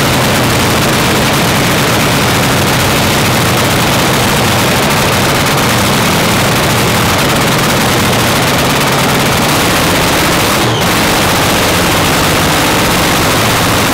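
Supercharged V8 of a front-engine dragster running steadily in the pits, very loud, with the recording distorting throughout. The sound dips briefly about eleven seconds in.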